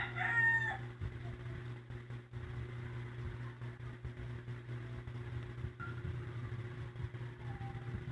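A rooster's crow trails off within the first second, over a steady low hum like an idling engine.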